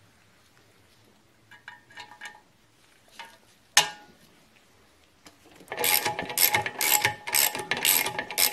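Ratchet wrench clicking in quick repeated strokes, about three a second, from about six seconds in, tightening the fixings of a brake back plate on a Morris Minor rear axle. Before it come a few light metal clinks and one sharp clink a little before four seconds.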